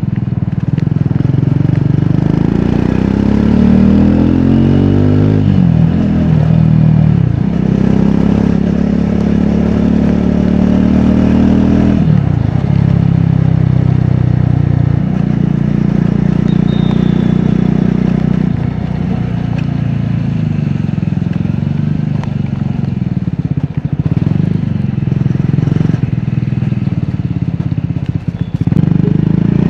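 Triumph Scrambler 400X's single-cylinder engine and exhaust under way. It pulls up through the revs, drops at a gear change about six seconds in, and pulls up again. It then runs at a steadier cruise with small rises and falls in revs.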